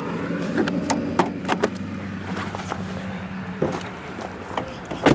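Steady low mechanical hum from a vehicle, with scattered light clicks and a sharp knock near the end.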